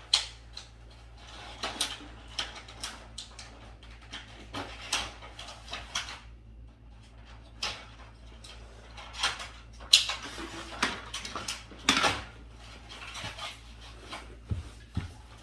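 Hard objects handled on a table: irregular clicks, taps and clatter, with louder knocks about ten and twelve seconds in.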